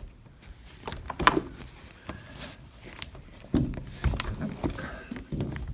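Sliding door latch being worked by hand as the lock lever is moved: a few sharp clicks and knocks, the loudest about four seconds in, with some duller thuds just before it.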